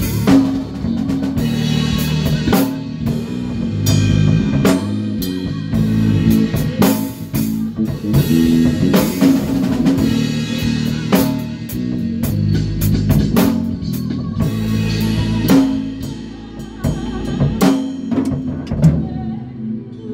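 Band rehearsing: a drum kit playing snare and bass drum hits over low bass guitar notes.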